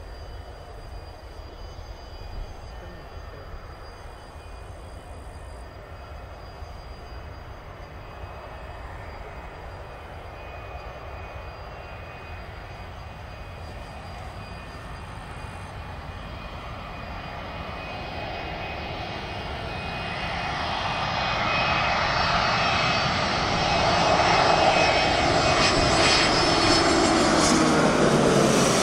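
Fixed-wing aircraft flying past: a low engine rumble that grows steadily louder over the last ten seconds, peaking with a falling pitch as the plane passes near the end.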